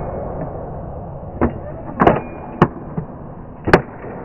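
ICS Tomahawk spring-powered airsoft bolt-action sniper rifle fired in quick succession: a run of about five sharp clacks of the bolt being racked and shots released, the loudest about two seconds in and again near the end.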